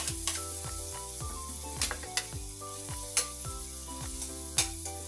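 Food sizzling as it fries in hot oil in an aluminium wok while it is stirred with a metal spoon.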